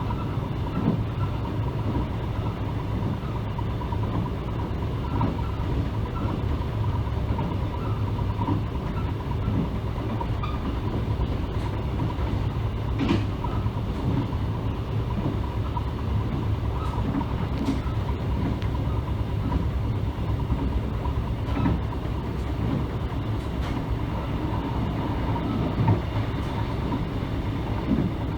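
Mugunghwa-ho passenger train running at speed, heard from inside the coach: a steady low rumble of wheels on rail with an occasional knock as the wheels pass rail joints.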